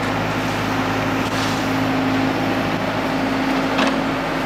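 Heavy truck's diesel engine idling with a steady hum, with a couple of faint clanks about a second and a half in and again near the end.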